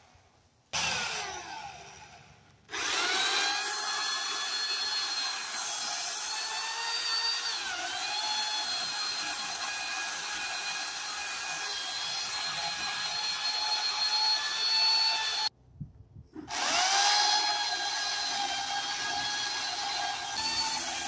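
Electric pole saw running as it cuts into a tree limb: the motor whines up to a steady pitch, dips briefly as the chain bites, cuts off suddenly and spins back up about a second later. A short blip that winds down is heard about a second in.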